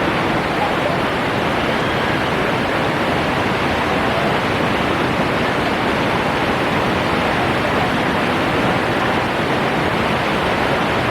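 Waterfall: water crashing down in a steady, unbroken rushing noise.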